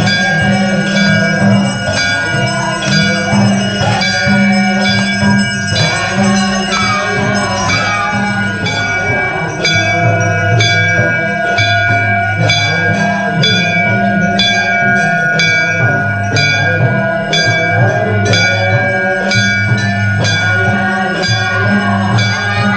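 Temple bells rung over and over during puja, about two strikes a second, each strike leaving a sustained ringing tone.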